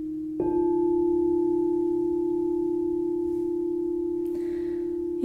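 Crystal singing bowl struck once with a mallet about half a second in, then ringing on with one steady tone and a slow pulsing waver as it fades.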